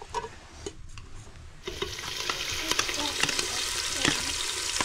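A sizzling hiss starts suddenly about two seconds in, with light clicks and knocks throughout.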